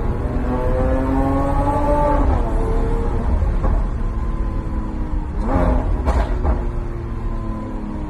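Sports car's engine and exhaust heard from inside the cabin, revving up with a rising pitch, then dropping at a gear change about two seconds in. It runs on at a lower pitch, with a few sharp cracks from the exhaust around the middle.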